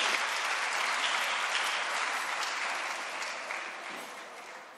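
Audience applauding in a large hall, the clapping slowly dying away.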